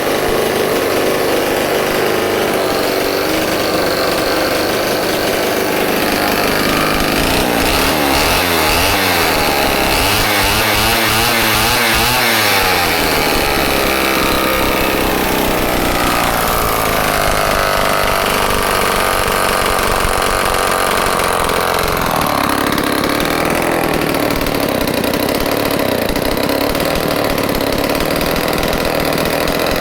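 Homelite XL-12 two-stroke chainsaw running loudly. Its engine speed rises and falls several times, wavering most about ten seconds in.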